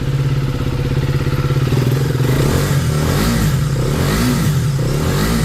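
KTM Duke 250's single-cylinder engine running at a steady idle, then revved in a few quick throttle blips in the second half. It runs smoothly, without the abnormal engine noise it had before the rebuild, and now sounds 'completely silent' with 'no noise'.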